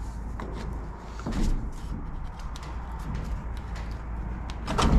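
Scattered light clicks and knocks of hands working with objects, with two louder thumps, one about a second in and one near the end, over a steady low rumble.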